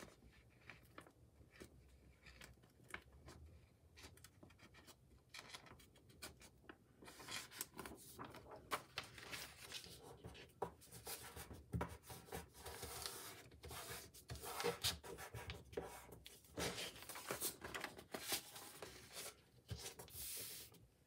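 Faint rustling and rubbing of paper and plastic film as hands press painter's tape down and smooth the sheets flat on a desk. There are only a few soft ticks at first, and the rubbing gets busier from about a third of the way in.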